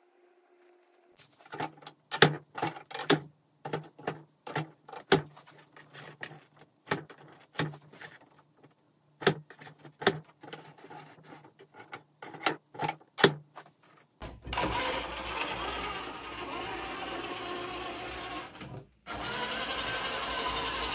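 Irregular clicks and knocks from handling the wheel of a 1/8-scale YK4083 Ford Bronco RC crawler, over a faint steady hum. About two thirds of the way in, this gives way to the truck's electric motor and geared drivetrain running as a steady whir while it drives, with a short break near the end.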